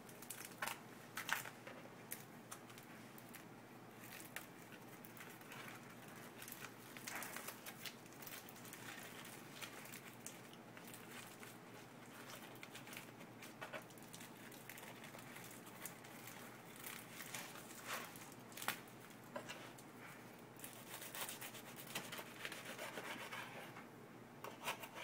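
Faint rubbing and rustling of hands working a filled spinach tortilla wrap, with scattered light taps and clicks.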